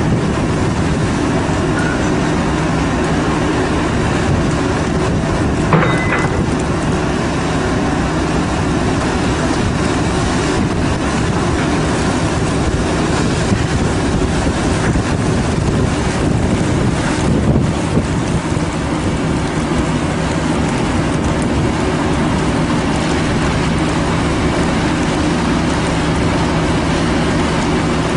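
Fishing boat's engine running with a steady low hum under loud wind and water noise, with a brief knock about six seconds in and another around seventeen seconds.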